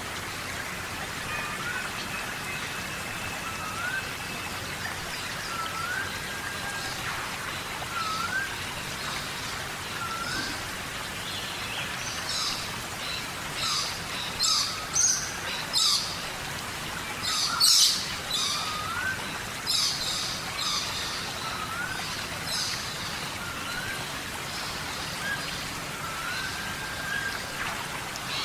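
Steady rain falling in a rainforest, with a bird repeating a short whistle that slides up and back down about every two seconds. From about twelve seconds in, loud quick high-pitched chirps come in bursts for some ten seconds and are the loudest sounds.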